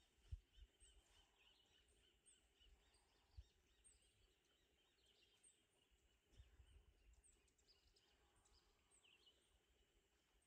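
Near silence: faint outdoor rural ambience with soft, repeated high-pitched chirping and a few low bumps.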